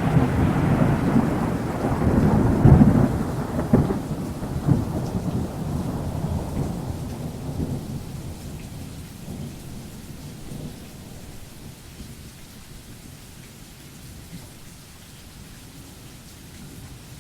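A loud rumbling noise with crackling surges, dying away slowly over about ten seconds to a faint hiss.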